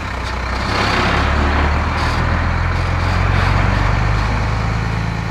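Heavy diesel truck engine running steadily, growing louder through the middle and easing off near the end.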